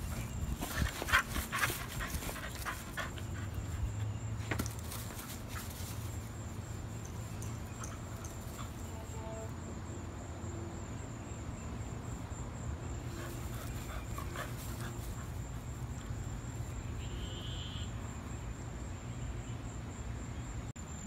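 A dog makes a few short, sharp sounds in the first two seconds, the loudest about a second in. After that there is only a steady low hum and a faint steady high tone.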